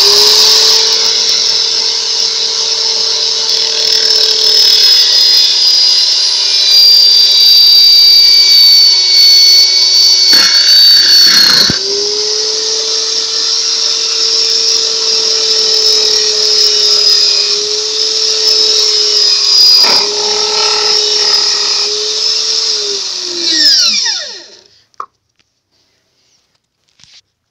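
Makita electric drill, rigged as a homemade lathe, running at speed with a steady whine while it spins a rubber ring against a hand-held pointed tool. Its pitch dips briefly twice, then it winds down and stops near the end.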